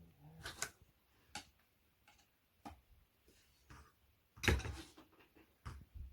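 Scattered knocks and clicks of flat-pack bedside table parts and fittings being handled and fitted together, the loudest knock about four and a half seconds in.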